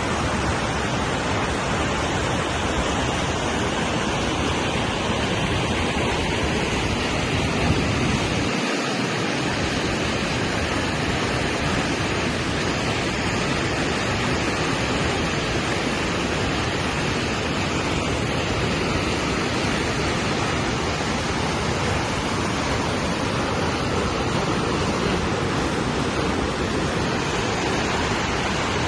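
Waterfall running high with cyclone floodwater: a steady rush of falling water, with a brief drop in the low rumble about nine seconds in.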